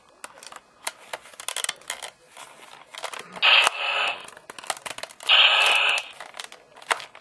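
Electronic sound effects from a Kamen Rider Ryuki V-Buckle toy belt's small, tinny speaker, two short bursts about three and a half and five and a half seconds in, among plastic clicks from the deck and cards being handled.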